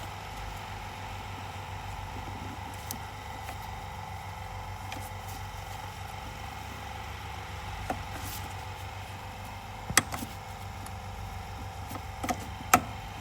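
Steady mechanical hum with a few sharp knocks, like tools or parts striking metal: one about eight seconds in, a loud one about ten seconds in, and two near the end.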